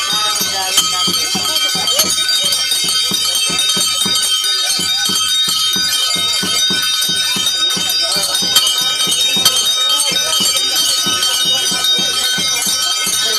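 Many bells jingling and ringing without a break over a fast, even beat of low strokes, with voices mixed in.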